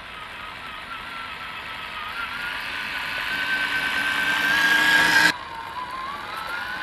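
Electric drive motor and gearbox of a 1/10-scale WPL C74-1 Suzuki Jimny RC car whining as it drives, the pitch wavering with the throttle. It grows louder, cuts off suddenly about five seconds in, then carries on quieter with the pitch rising.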